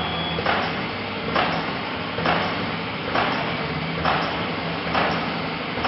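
Pouch packing machine running, with a regular knock about once a second as its sealing head strokes down on the moving film web, over a steady mechanical hum.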